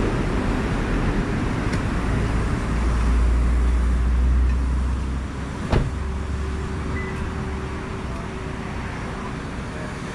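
Street traffic noise, with a vehicle's low rumble swelling past a couple of seconds in and fading out, and one sharp click just after halfway.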